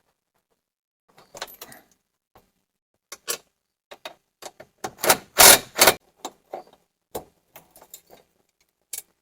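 Scattered clicks and clattering of small metal parts and tools being handled, with a loud cluster of knocks about five to six seconds in.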